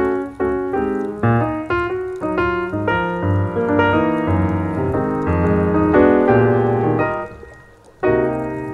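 Background piano music: a melody of single notes over held chords, fading briefly near the end before new notes come in.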